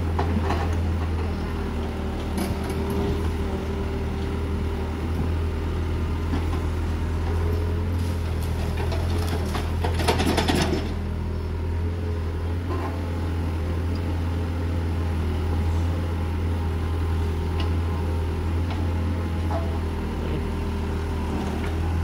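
Mini excavator's diesel engine running steadily while its bucket digs a trench. A brief, louder burst of noise about ten seconds in, lasting about a second.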